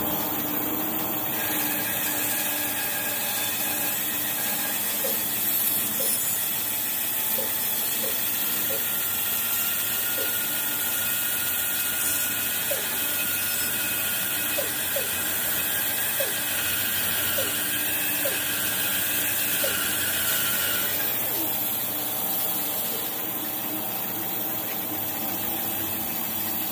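Band saw running steadily while its blade rips a thin slab off the side of a log pushed through on a sled. The cutting sound drops away about three quarters of the way through as the cut finishes, leaving the saw running free.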